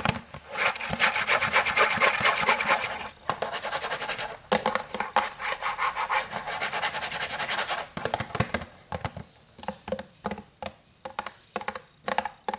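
Fingernails scratching a cardboard toothpaste box: two long runs of fast scratching strokes, then slower, separate scratches and taps over the last few seconds.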